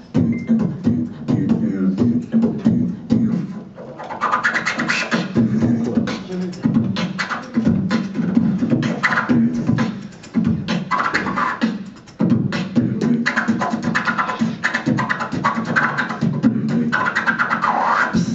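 Human beatbox performed into a handheld microphone: quick rhythmic clicks and snare-like hits over a hummed bass line. A higher, buzzier vocal layer joins about four seconds in, and the routine stops suddenly at the end.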